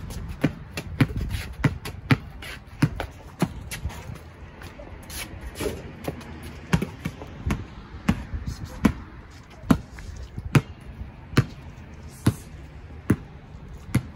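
Basketball dribbled on a concrete driveway, a steady run of bounces a little under a second apart.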